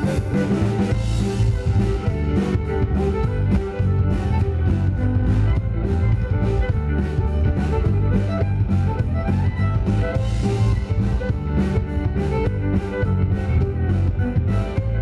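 A live string band plays an instrumental with a steady beat: fiddle, banjo, electric bass and acoustic guitar together.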